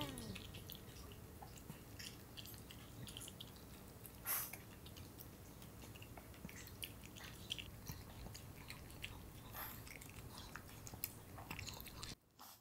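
Pomeranian eating from a bowl: steady, quiet chewing and crunching with many small clicks, and one louder clack about four seconds in.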